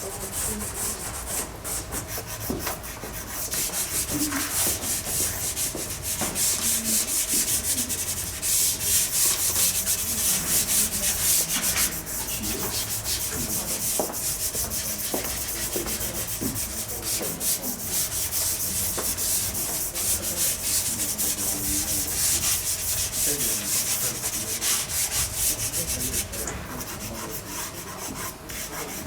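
Dry pastel stroked and rubbed across primed pastel paper: a scratchy rubbing in many quick, repeated strokes, heaviest in the first half.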